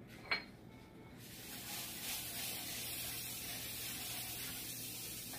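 Butter sizzling as it is rubbed over a hot electric griddle: a steady hiss that starts about a second in, after a short click.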